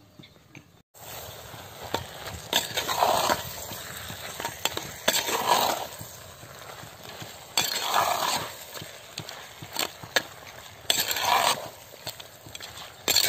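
A metal ladle stirring and scraping quail pieces and masala around a clay cooking pot, with a stroke about every two to three seconds and light taps of the ladle against the pot between them, while the meat sizzles in the oil.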